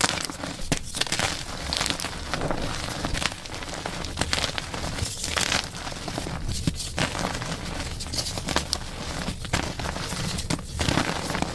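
Chalk being crushed and crumbled, a dense run of crunching crackles and small snaps.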